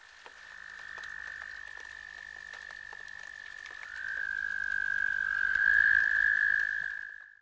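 Chorus of calling frogs, a steady high-pitched trill that swells about halfway through and fades out near the end.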